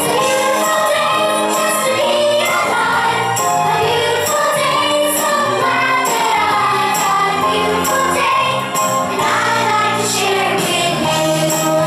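A group of young children singing along to recorded pop music with a steady beat.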